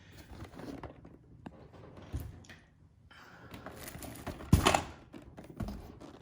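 Board game boxes and packaging being handled: rustling, light taps and scrapes, with one sharp knock about four and a half seconds in.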